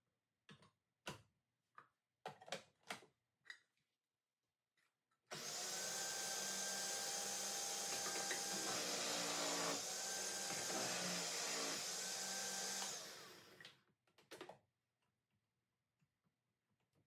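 Food processor shredding an onion through its small-hole shredding disc. A few plastic clicks as the disc and lid are fitted, then the motor runs steadily for about seven and a half seconds and winds down, followed by a couple of clicks.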